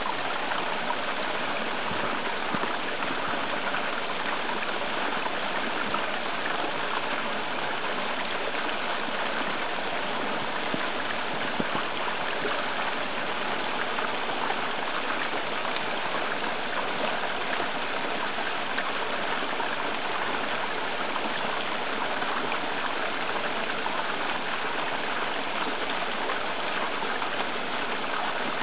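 Shallow stream rippling over stones, a steady, even sound of running water with no breaks.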